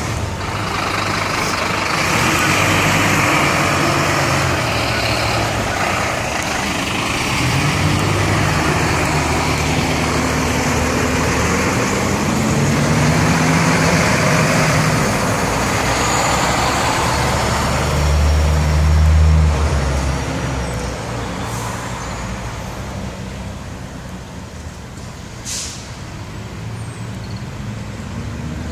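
Diesel engines of fire engines running close by, a low heavy-truck engine note that swells and fades as the trucks move, growing quieter in the last third.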